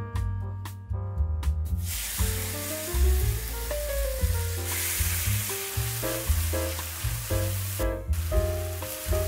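Marinated pork pieces frying in hot oil in a stainless steel wok, a steady sizzle that starts about two seconds in as the meat goes into the oil, over background music.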